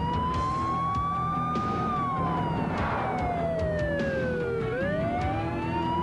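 Police car siren wailing in a slow rise and fall: it climbs to its peak about two seconds in, slides down until nearly five seconds in, then starts climbing again.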